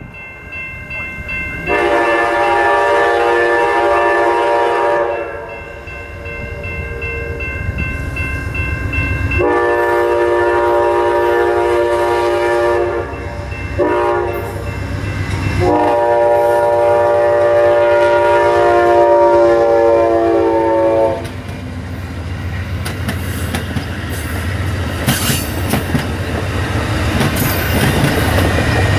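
Amtrak GE P42DC Genesis locomotive horn sounding the grade-crossing signal, long, long, short, long, as the passenger train approaches. The train then rolls past with its wheels clicking over the rail joints.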